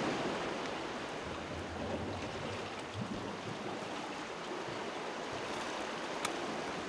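Steady rushing wash of sea water at the foot of the cliff, with a single click near the end.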